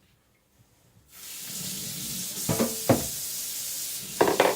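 Water running from a tap in a steady hiss that starts suddenly about a second in, with a few hard knocks, like a whetstone bumping against the sink.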